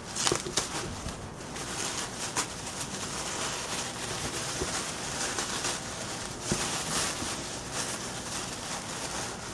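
Packaging being unwrapped by hand: a steady rustling and crinkling with many small sharp crackles.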